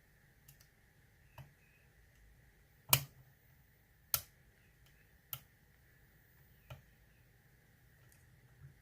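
Lock pick and tension wrench working the pins of an ASSA oval euro cylinder: a series of sharp, small metal clicks at irregular intervals of about one to one and a half seconds, the loudest about three seconds in.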